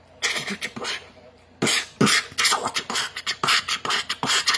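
Beatboxing into cupped hands: short, breathy percussive mouth sounds in a rhythm, stopping for about half a second near the start and then picking up again more densely.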